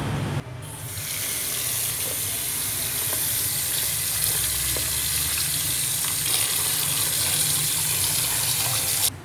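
Tap water running into a plastic basin of water while hands rub and rinse pieces of sea snail, splashing. The steady running-water noise starts about a second in and cuts off suddenly near the end.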